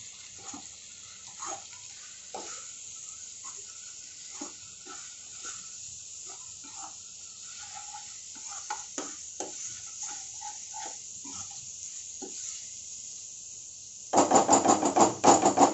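Tomato-onion masala with freshly added powdered spices sizzling in a steel kadhai while a steel spoon stirs it, scraping and clinking lightly against the pan now and then. Near the end comes a loud burst of fast, rapid strokes of the spoon against the pan.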